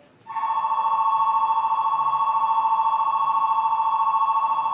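Station platform departure bell ringing: a steady, rapidly trilling two-tone electronic bell that starts about a third of a second in and keeps going. It signals that the train's doors are about to close for departure.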